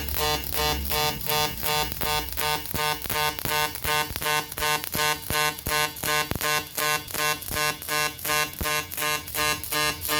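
Background music with a steady, evenly pulsing beat.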